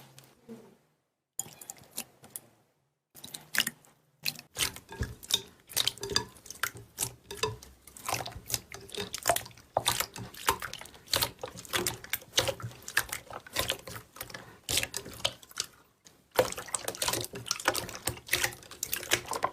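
Slime being squished and pressed by hand: a dense run of wet clicks and pops, with a short pause about three-quarters of the way through.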